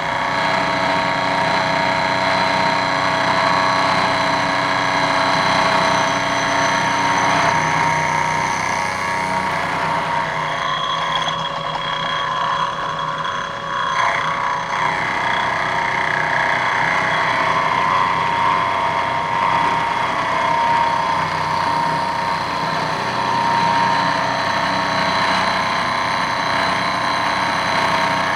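Vertical milling machine's end mill cutting an aluminium steering damper bracket under hand table feed: a steady, loud machining whine with several held tones, easing for a few seconds near the middle.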